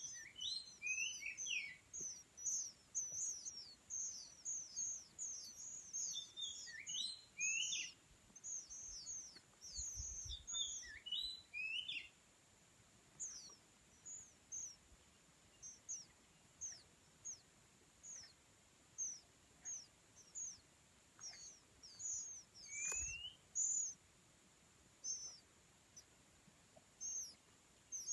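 Oriental magpie-robin singing in the wild: a string of short, high, downward-slurred whistles, packed close together with some lower phrases for the first twelve seconds or so, then coming singly at spaced intervals. A couple of faint low thuds come about ten seconds in and again past twenty seconds.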